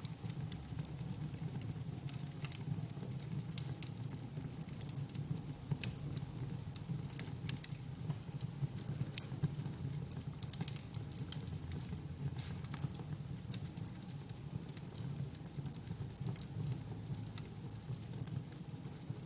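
Wood fire crackling: frequent irregular sharp pops and snaps over a steady low rumble of the burning.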